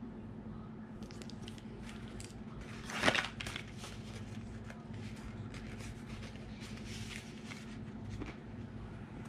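Packaging rustling and crinkling as beauty products are handled and taken from a subscription box, with many small rustles and clicks and one louder crinkle about three seconds in.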